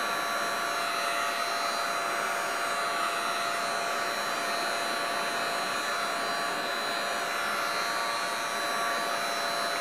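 Heat gun running steadily: an even rush of blown air with a steady motor whine, used to fuse encaustic wax.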